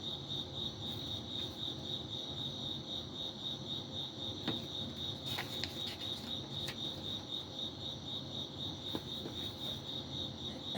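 An insect chirping in a steady, even high-pitched pulse, with a few faint soft clicks scattered through.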